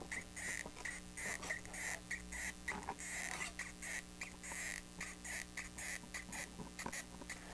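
Faint, irregular small clicks and squeaks as a hot glue gun is squeezed and run along a paper box's tabs.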